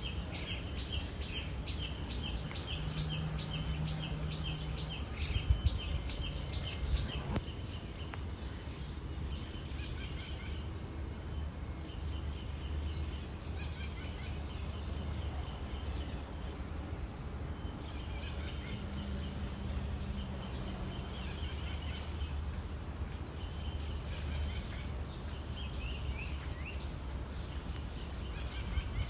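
Cicadas droning in a loud, steady, high-pitched hiss. Over it, a bird calls in quick repeated notes, about two or three a second, for the first several seconds, then gives scattered short calls, a few of them falling in pitch. A faint low rumble runs underneath.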